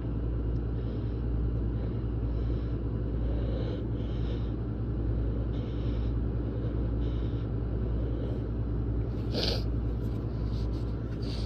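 Steady low rumbling drone with a constant hum, with faint short hisses every second or so and one short, sharp burst about nine and a half seconds in.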